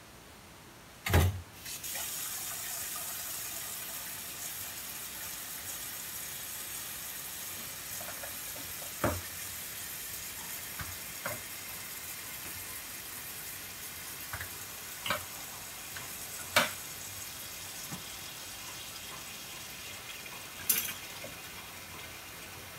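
Kitchen mixer tap running steadily into a stainless-steel sink, starting with a loud knock about a second in. Several sharp knocks and clicks from objects being handled at the counter break in over the running water.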